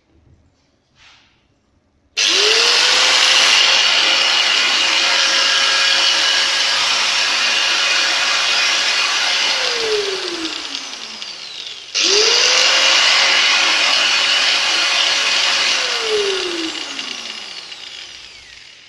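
Vektor VUShM-125/960 angle grinder (125 mm, 960 W) switched on twice. Each time its motor spins up quickly, runs with a loud, steady whine for several seconds, then winds down with a falling pitch after it is switched off.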